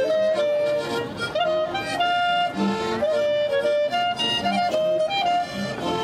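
Lively folk dance music with accordion and fiddle playing the melody.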